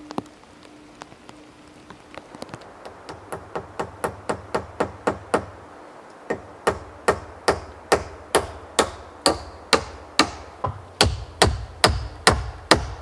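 Hammer blows, a steady run of about two to three strikes a second that starts a couple of seconds in, breaks off briefly around the middle, and grows louder toward the end, each strike with a short metallic ring.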